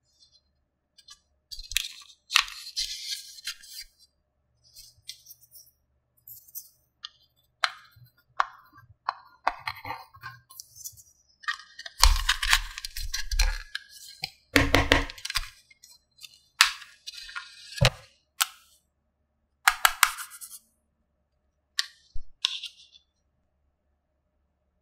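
Small plastic toy pieces being handled and unpacked: irregular clicks, clinks and rustles, busiest in the middle stretch.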